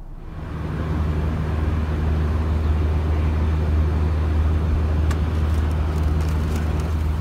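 Hyundai Veloster hatchback idling steadily, a constant low hum. Faint clicks about five seconds in, as its doors are opened.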